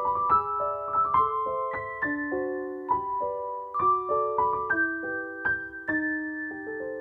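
Piano music: a melody of struck notes over chords, a few notes a second, ending near the end on a held chord that is left to ring and fade.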